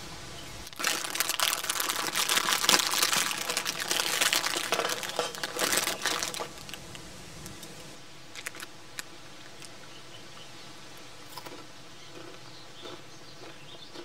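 Loud, close crinkling and rustling for about six seconds, then it stops and only a few faint scattered clicks follow.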